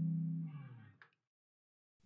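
A held electric guitar chord, a Telecaster played through a valve preamp, dies away over about a second. There is faint string noise as it fades, then silence.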